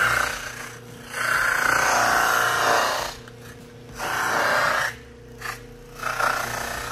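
Kydex holster edge pressed against a cloth buffing wheel spinning on an electric motor: rasping rubs about one to two seconds long, repeated in separate passes over the motor's steady hum. The inside edge of the holster is being eased to a heavier chamfer.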